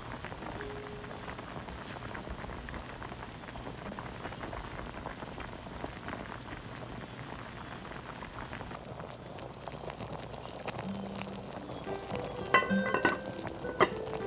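Pork belly and leeks bubbling and sizzling in the juices they have given off in a pot with no water added, a sign the waterless cooking is working. Near the end a glass pot lid clinks into place, twice, with a short ring.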